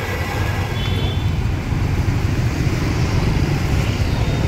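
Steady low rumble of street traffic running past, with no break.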